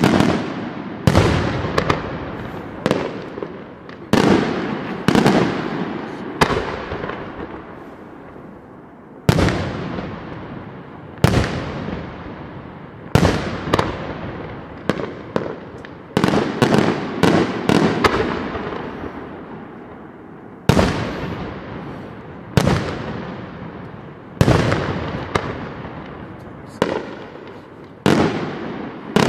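Aerial fireworks shells bursting one after another in a professional display, sometimes in quick clusters. Each bang is followed by a long rolling echo that fades over a second or more. There is a short lull about a third of the way in.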